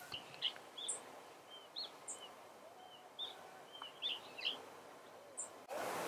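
Small songbirds calling: about ten short, high chirps scattered over a few seconds, a few with a very thin higher note, over faint background hiss. Near the end a louder outdoor background sound suddenly takes over.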